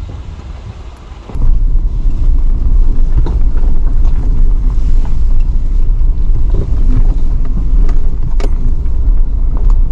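Vehicle driving on a rough dirt road: a loud, heavy low rumble sets in suddenly about a second in, with scattered knocks and rattles over it.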